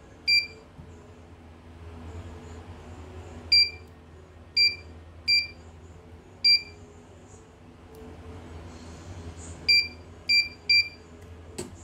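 CNY portable embroidery machine's control panel beeping as its buttons are pressed: eight short, high, identical beeps at irregular intervals. A faint steady hum runs underneath.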